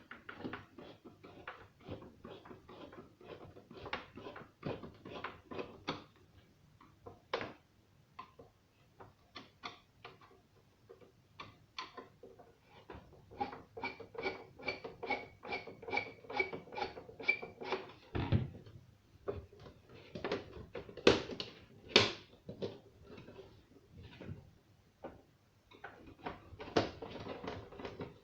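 Clicks, taps and knocks of hand tools and parts while an old valve-era radio is taken apart. About halfway through comes a run of quick, even clicks, about four a second, then a single dull thump.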